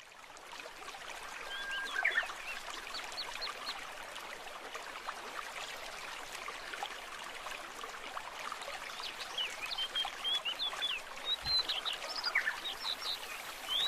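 Steady trickle of running water with birds giving short high chirps over it, in clusters now and then.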